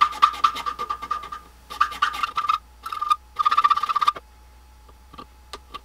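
Needle file rasping back and forth across the teeth of a small hand-cut gear in rapid short strokes, in bursts that stop about four seconds in, with a few light ticks near the end. He is filing the tooth gaps wider so that the gear meshes smoothly without crunching or skipping.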